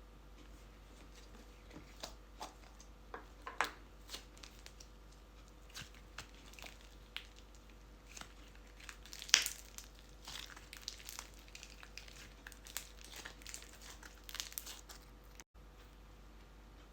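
Scattered crinkling and small crackles from hands handling crinkly material, with a sharper crackle about nine seconds in.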